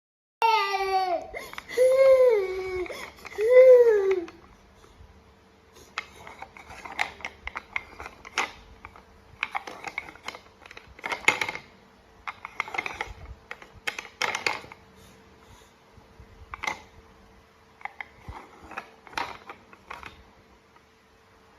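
Infant crying: three loud wails in the first four seconds, each arching and falling in pitch. Then quieter, irregular short sounds and clicks.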